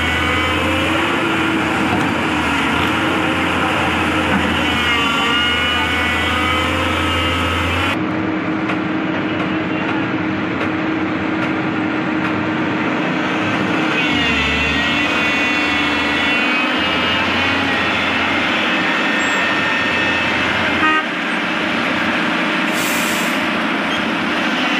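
Large tracked excavator working under load: a diesel engine running steadily, with a hydraulic whine that rises and falls in pitch as the machine lifts and swings a heavy granite block.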